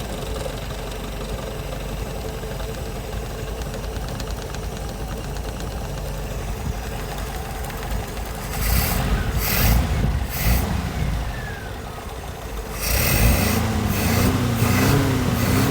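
Car petrol engine idling steadily, then revved up and let back down a few times: once about eight seconds in, and again near the end.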